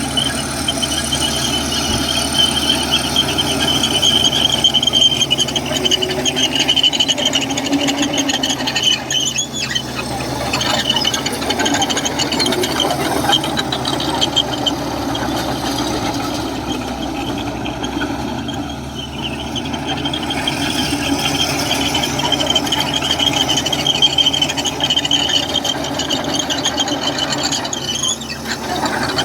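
Komatsu crawler bulldozer working, its steel tracks squealing high over the running engine with a steady clatter of track links. The squeal eases off twice and comes back.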